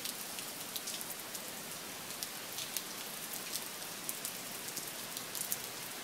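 Steady rain falling, an even hiss with many sharp single-drop ticks scattered through it.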